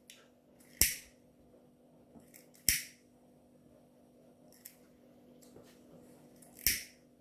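A lighter being struck: three sharp clicks with a short hiss after each, about a second, three seconds and seven seconds in, with a few softer clicks between, over a steady low hum.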